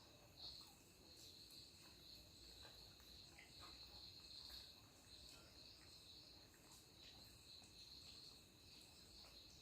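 Near silence, with the faint, steady high-pitched chirring of crickets swelling and fading a little, and a few faint soft clicks.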